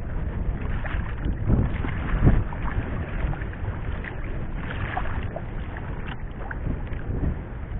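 Water sloshing against a small fishing boat's hull, with wind rumbling on the microphone and a few short knocks, the loudest about two seconds in.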